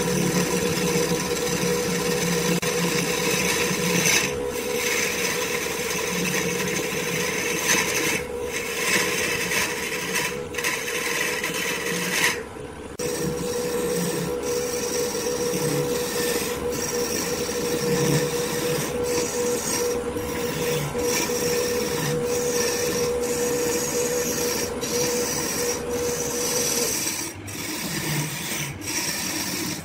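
Wood lathe running while a turning tool scrapes and cuts into a spinning wood-and-resin blank, a continuous rasping noise over the lathe's steady hum, broken by a few short pauses. The hum drops away near the end.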